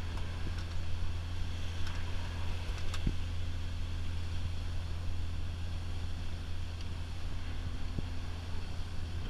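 Motor yacht under way, its engines giving a steady low drone with an even hiss over it.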